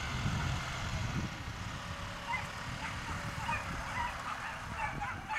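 Excited dogs yipping and yelping in many short, high calls, over a steady low rumble.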